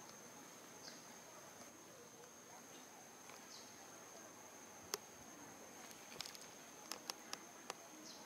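Near silence: faint outdoor ambience with a steady high-pitched insect drone. A sharp click about five seconds in and a few more near the end.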